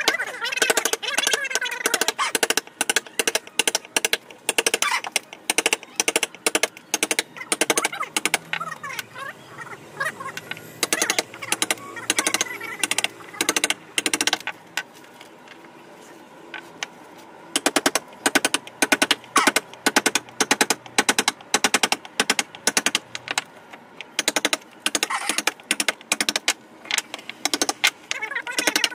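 Hammer striking a steel chisel into teak wood in rapid runs of sharp taps, as the carver chops out the carved border. The taps ease off briefly about halfway.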